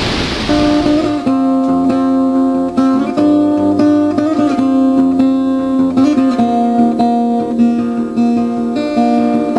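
Acoustic guitar music, plucked notes and chords. Wind rushing on the microphone fades out during the first second as the guitar comes in.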